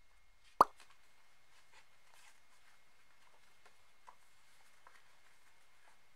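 A single sharp pop about half a second in, then a few faint light clicks and rustles of a stiff printed card and a folded paper manual being handled.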